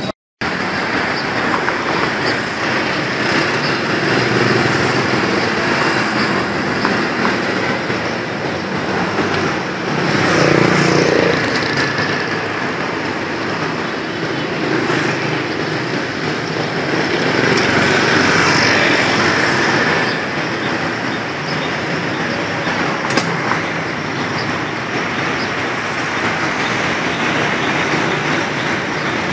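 Steady street traffic noise from passing vehicles, swelling louder twice as vehicles go by.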